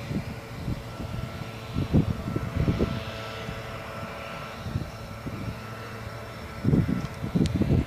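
Wind gusts buffeting the microphone in uneven low rumbles, strongest about two seconds in and again near the end, over a faint steady engine drone in the distance.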